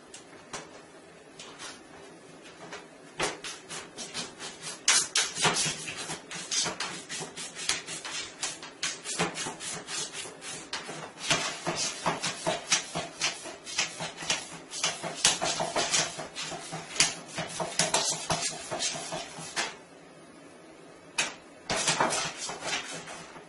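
A cat pawing and scratching at a slatted plastic roll-up bathtub cover: quick rattling clicks and scrapes of the plastic slats, coming in long runs with a pause of about a second near the end.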